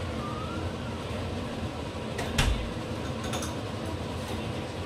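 Steady low background hum with a dull thump about halfway through, followed shortly by a few light clinks of cutlery and dishes.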